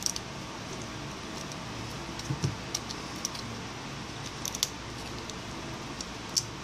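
Small plastic and metal parts of an opened smartphone being handled by hand: a few light, scattered clicks and taps as flex cables and board pieces are fitted, over a steady low hiss.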